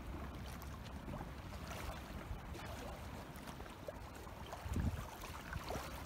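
Small wind-driven waves lapping and sloshing at a lakeshore, with wind rumbling on the microphone and a louder low thump about five seconds in.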